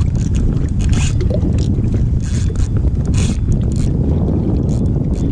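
Wind rumbling on the microphone over water lapping and splashing against a kayak, with short hissy splashes coming and going about once a second.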